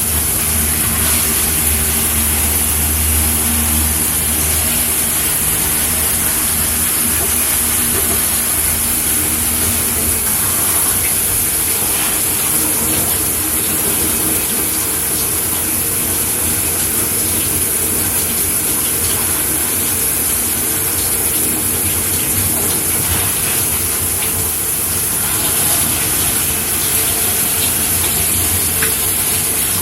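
Shower head spraying water steadily, an even bright hiss of falling water. A low hum runs underneath for roughly the first ten seconds, then fades out.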